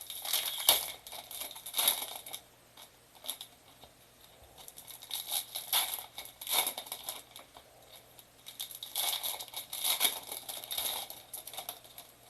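Packaging of a 2022 Bowman Mega trading-card box crinkling and tearing as it is opened by hand, in three bouts of rustling with short quiet pauses between them.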